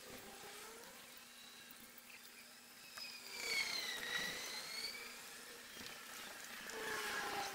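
Faint buzzing of a flying insect, its pitch wavering as it moves about. About three seconds in, a louder, higher whine dips in pitch and rises again before fading.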